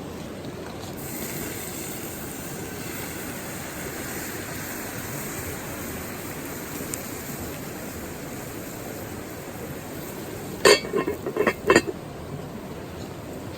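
A quick run of about five sharp clinks of camp cookware or utensils, the loudest sounds, near the end, over the steady rush of a river.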